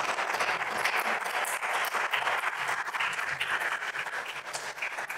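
Audience applauding, many hands clapping together, easing off near the end.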